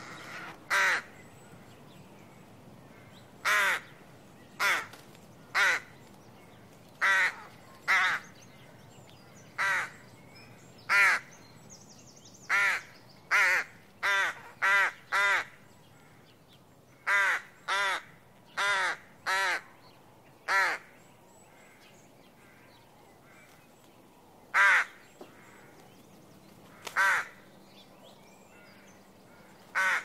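Rook cawing: about twenty short caws in uneven runs, some in quick clusters, with a gap of a few seconds before the last two calls.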